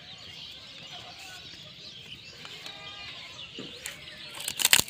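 Chickens clucking faintly in the background, with a short call a little over halfway through. Near the end come a few sharp crackles, loudest of all, as a sheet of notebook paper is picked up and handled close to the microphone.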